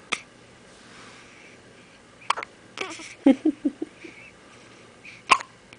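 Newborn baby hiccuping: three sharp, brief hiccups a couple of seconds apart, with a few short vocal sounds after the second.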